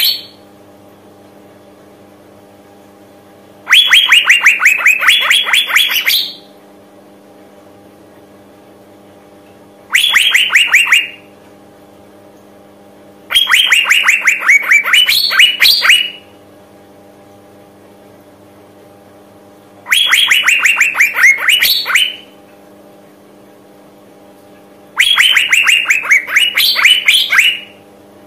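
Female Asian fairy-bluebird calling: five loud bouts of rapid, evenly repeated notes, each lasting one to two and a half seconds, sliding down in pitch and then rising sharply at the end, about every six seconds. It is the female's call that draws male fairy-bluebirds to answer and sing.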